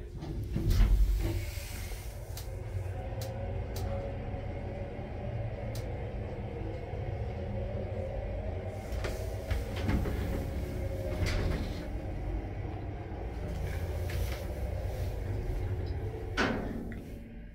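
A 2004 MP indirect hydraulic lift: its car doors shut with a heavy thud about a second in. Then a steady low rumble and hum, with a few light clicks, as the car travels, and a clunk near the end as the car stops.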